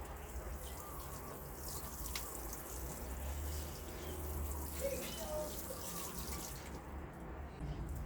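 Water running with a steady hiss, with a few sharp ticks about two seconds in.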